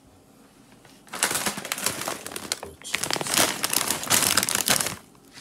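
Plastic bag of blue corn tortilla chips crinkling as it is handled, in two rustling stretches of about one and a half and two seconds with a short break between them.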